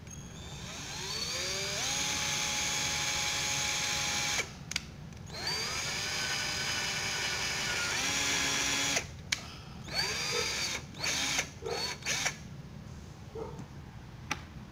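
Ryobi cordless drill/driver driving screws through small metal corner brackets into wood: the motor whine rises as it spins up, runs in two long stretches of a few seconds each, then comes in several short trigger bursts.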